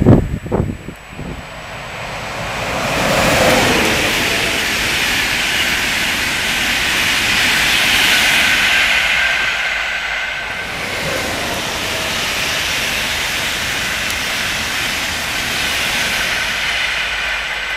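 Express passenger train passing close at speed: the rush of the coaches and wheels on the rails swells a couple of seconds in and holds steady, with a faint high whine above it in the second half. A few sharp knocks at the very start.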